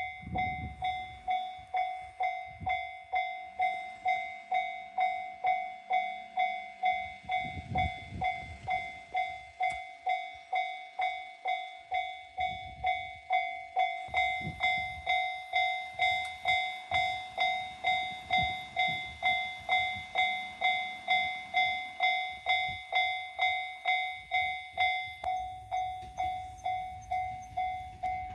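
Japanese level-crossing warning bell ringing in even strikes, about two a second, signalling that a train is due. A train's low rumble swells and fades underneath it twice.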